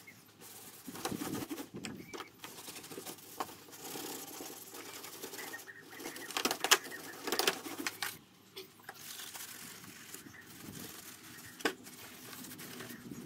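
Stiff brush scrubbing soapy degreaser over the plastic front bumper and grille of a VW Crafter, in irregular scratchy strokes, with a few sharp knocks as the plastic parts are handled and turned over.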